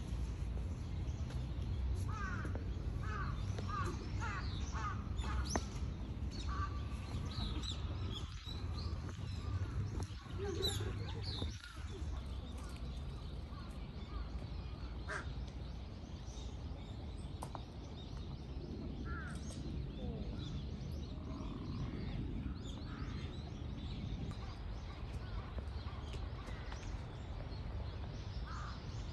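Birds around a pond: crows cawing and ducks calling at intervals, over a low steady rumble.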